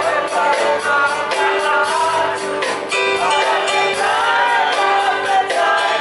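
Live singing with instrumental accompaniment: a melodic vocal line over held instrument notes.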